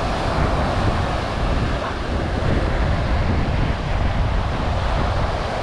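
Wind buffeting the microphone over surf breaking on the shore: a steady rushing noise with a heavy low rumble.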